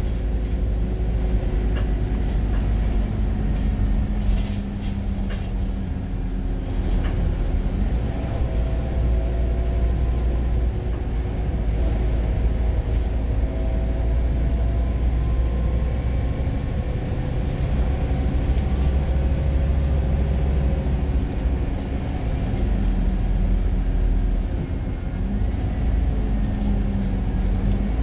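Scania Irizar i4 coach's engine pulling under way, heard from inside the passenger saloon: a deep steady drone with road rumble, its pitch drifting up and down a little. A few light rattles about four to seven seconds in.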